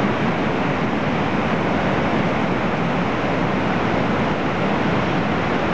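Steady roar of Lava Falls, a big whitewater rapid on the Colorado River running high at about 16,600 cfs.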